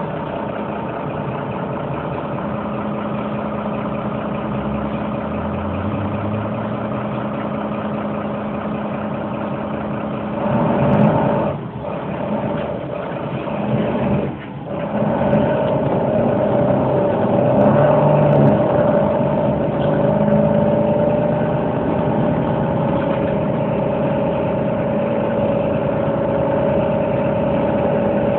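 An engine running steadily at a constant speed, a low, even hum of the kind made by construction machinery on a building site. In the middle it grows louder and uneven, drops away briefly twice, then runs on a little louder.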